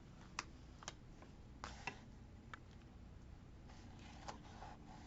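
Faint, scattered light clicks and taps, about half a dozen in the first few seconds, with a soft rustle near the end: stickers and a sticker tool being handled on a journal page.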